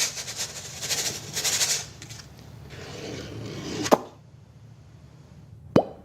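Scraping and rubbing noises, then two quick, sharp swishes, one about four seconds in and one near the end.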